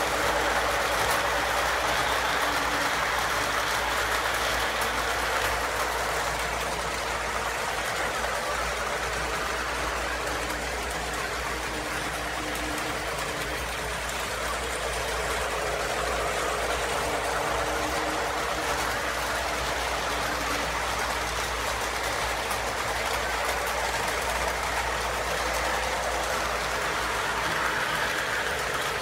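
Electric model train running on the layout's track: a steady rolling rumble of wheels and motor.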